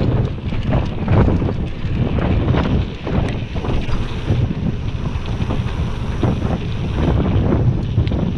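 Wind buffeting the microphone as a mountain bike rolls fast down a dirt trail, with tyre rumble and frequent small knocks and rattles from the bike jolting over bumps.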